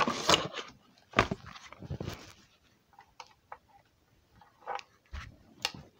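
Handling noise close to the microphone: a run of irregular knocks, clicks and rustles of small objects being picked up and moved, busiest in the first second and again near the end.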